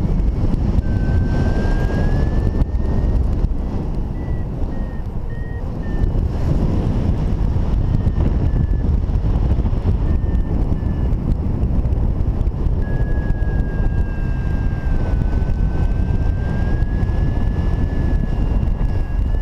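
Steady rush of airflow over the microphone of a paraglider in flight. Over it a thin, high electronic tone from a flight variometer comes as short beeps in the first few seconds and as one slowly wavering tone in the second half.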